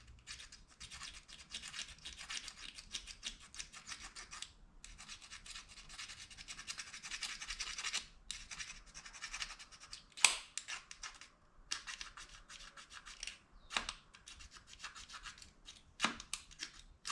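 Plastic fork scraping rapidly back and forth along the edge of a plastic spoon, a fast, dense scratching that comes in runs of a few seconds with short breaks. In the second half a few sharp plastic clicks cut in.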